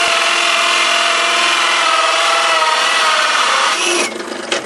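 Pro Red Eye bench pillar drill driving a hole saw through wood: a steady, loud rasping cut with the motor's hum under it. The cut stops abruptly about four seconds in as the saw is eased out, halfway through the piece, followed by a single click.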